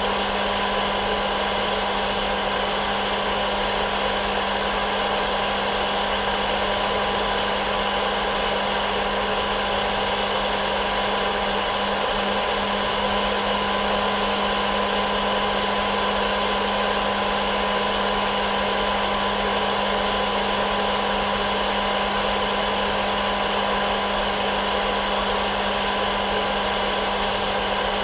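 Hair dryer running steadily: an even blowing hiss over a low motor hum, with no change in pitch or level.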